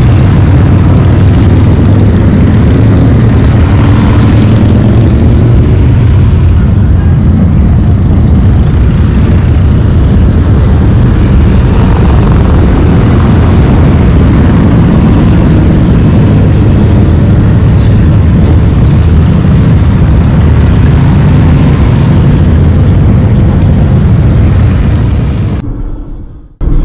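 Loud, steady low rumble of a vehicle in motion, fading out in the last second or so.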